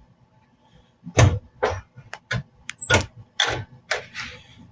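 Gear shift lever and linkage being moved through the gears: a string of short knocks and clunks, about two a second, starting about a second in.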